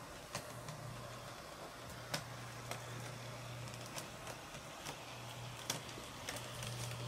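HO-scale Auscision 48 class model diesel running on DC at low power: a faint, steady motor hum from a quietly running mechanism, with scattered light clicks from the wheels on the track.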